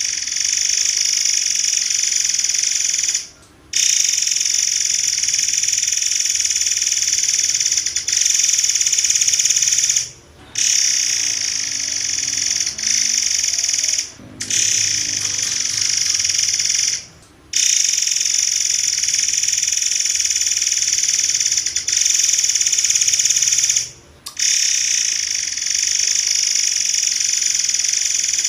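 Murai air (forktail) singing a dense, shrill, high-pitched rapid-fire stream of notes in long runs of several seconds, broken by about five brief pauses.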